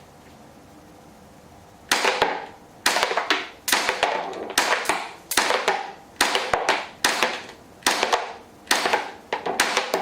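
A Tanaka Glock 17 cap-firing model gun with a silencer barrel, blowback-firing double-cap W-CAP cartridges. Starting about two seconds in there are about a dozen sharp, suppressed cap shots, roughly one a second and sometimes closer together, each with the slide cycling.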